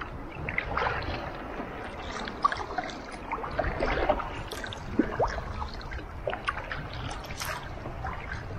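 Water splashing and trickling around a plastic sit-on-top kayak being paddled: scattered drips and small splashes from the paddle and water lapping at the hull, with a couple of slightly louder splashes about two and a half and five seconds in.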